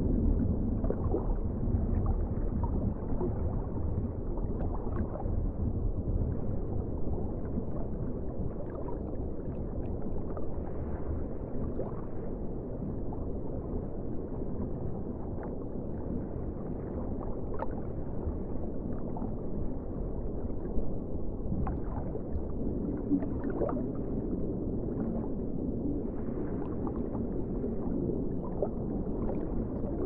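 Underwater ambience: a steady, muffled low rumble of water, with scattered faint clicks and brief squeaks.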